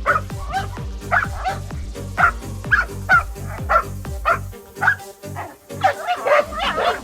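A Presa Canario barking and yipping over and over, roughly twice a second, over background music with a steady bass beat. The beat drops out for about a second after four and a half seconds.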